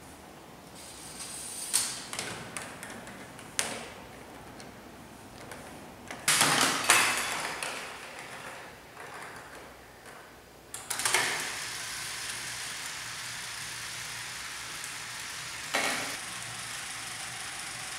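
Plastic construction-kit Rube Goldberg machine running: a few sharp clicks, then a louder rattling clatter of parts about six seconds in, and from about eleven seconds a steady whir with another click near the end.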